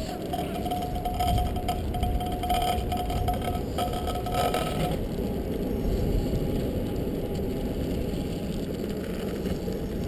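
Scooter wheels rolling on asphalt, a steady low rumble. A thin steady whine rides over it and stops about five seconds in.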